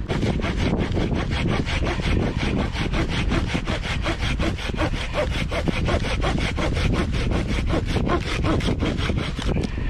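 Folding pruning saw cutting through a branch by hand: quick, even back-and-forth strokes of the toothed blade rasping through the wood, stopping near the end.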